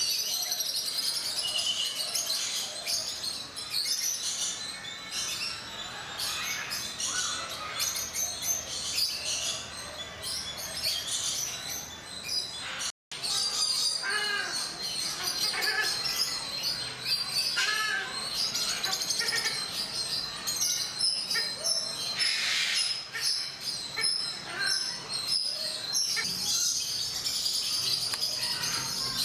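Many birds chirping and calling together in a dense, continuous chorus of short high chirps with some lower calls mixed in. The sound cuts out for a moment about halfway through.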